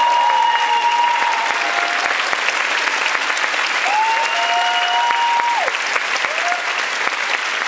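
A theatre audience gives a standing ovation, with dense, steady clapping. High voices in the crowd call out in long held cheers over it, once at the start and again about four seconds in.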